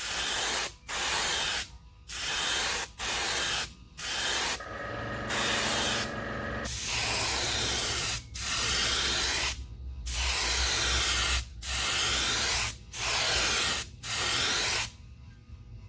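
Airbrush spraying lure paint in a dozen or so short hissing bursts of under a second each, with one longer steady spray near the middle. A low hum runs underneath from about a third of the way in.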